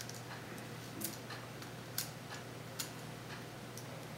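A few faint, sharp clicks about a second apart as the small parts and antenna leads inside an opened tablet computer are handled, over a steady low hum.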